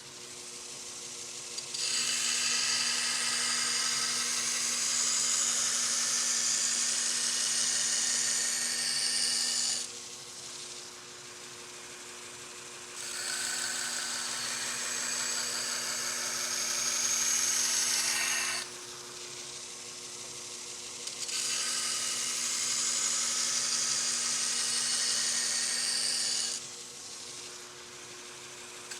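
A motor-driven sharpening machine running steadily, with a steel cleaver blade pressed to it in three long grinding passes of about eight, six and five seconds. Each pass is a loud, high grinding hiss over the machine's hum.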